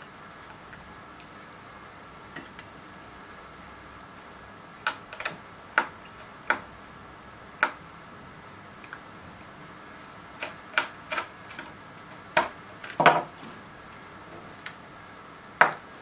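Small screwdriver and wire ends clicking and tapping against plastic screw terminal connectors on a wooden board as wires are fastened in: a dozen or so sharp, irregular clicks, some in quick pairs, starting about five seconds in, over a faint steady hum.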